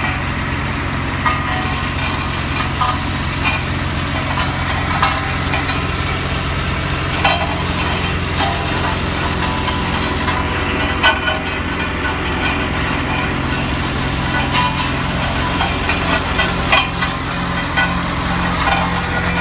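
Engine of a Sakai double-drum ride-on roller running steadily, with scattered light clanks and rattles. About seven seconds in, its note changes and takes on a regular pulsing.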